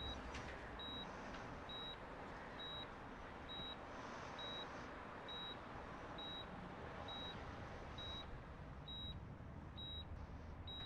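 Electronic medical monitor beeping steadily and faintly, a short high beep about one and a half times a second, over a low hiss.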